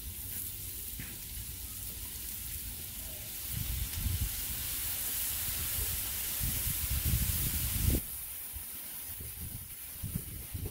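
Lamb chops sizzling on a hot flat-top griddle. The sizzle swells and hisses louder a few seconds in, as liquid squirted from a squeeze bottle hits the hot steel and steams off, then eases back near the end.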